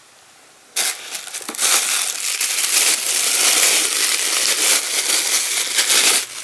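Thin clear plastic bag crinkling and rustling as it is handled and pulled open to take out a suction-cup windshield mount. It starts abruptly about a second in and goes on steadily for about five seconds.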